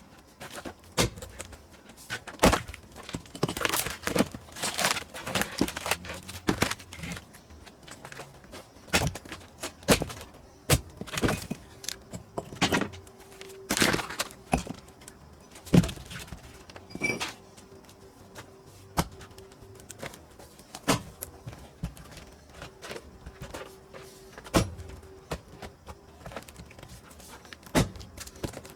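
Irregular knocks and thuds of pine firewood being split and handled, a dozen or so sharp strikes spread unevenly, with a faint steady hum in the second half.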